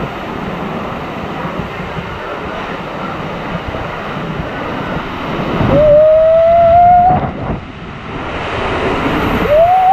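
Rushing water and air noise as an inner tube slides down a water-coaster flume. Twice it is broken by a long, loud held cry, first about six seconds in and again near the end.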